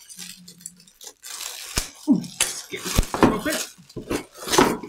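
A solid metal burger press being handled and unwrapped: packaging rustling, with several sharp metal knocks and clinks.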